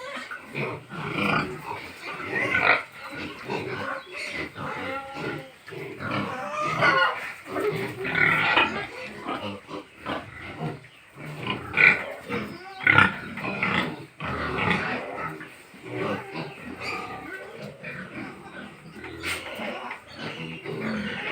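Pigs in a pen grunting and squealing, many calls overlapping in an irregular stream, with a few louder, higher squeals past the middle.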